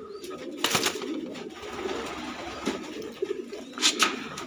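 Domestic pigeons cooing low and steadily in a loft, with two short sharp clicks, one just under a second in and one near the end.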